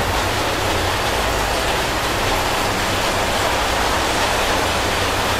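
Heavy rain falling, a steady, even hiss that does not let up.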